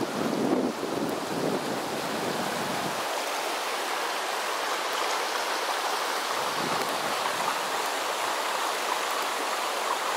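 Swollen, muddy floodwater rushing over stones in a creek fed by flash-flood runoff after days of heavy rain: a steady, unbroken rush of water.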